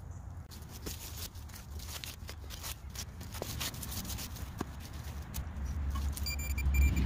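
Shovel cutting into lawn soil and turf, with small clicks, scrapes and rustles of digging. Near the end a passing car rumbles low and a short run of high electronic beeps sounds.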